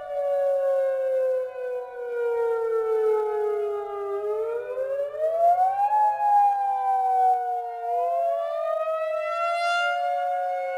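Two Federal Signal outdoor warning sirens, a 2001-130 and a Modulator II 5020B, sounding the wail signal out of step with each other. Each pitch slides slowly down and then climbs again, so the two tones cross.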